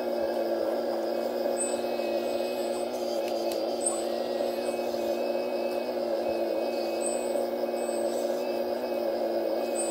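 Radio-controlled Kobelco model excavator running while it digs, a steady hum of several held tones. Faint short high chirps recur every two or three seconds.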